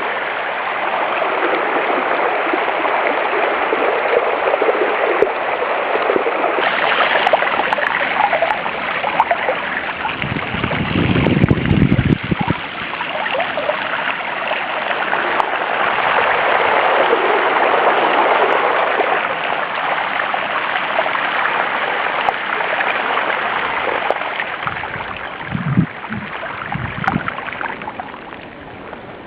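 A bicycle's front wheel churning through deep, fast-flowing floodwater: a steady rushing and splashing of spray, with a few low thumps along the way. The water sound drops away near the end as the bike rolls out onto wet road.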